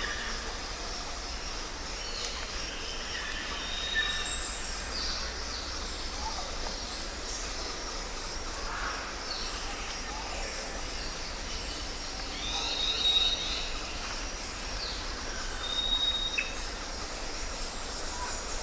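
Jungle ambience: a steady background hiss of insects and distant birds, with scattered bird calls and short high whistles over it. The loudest is a brief rising call about four seconds in.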